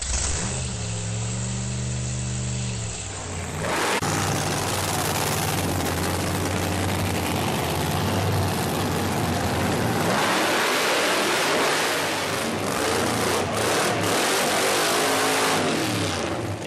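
A Hemi-engined drag car run at high revs through a burnout: loud, harsh engine noise that starts suddenly about four seconds in, after a shorter rise and fall of revs.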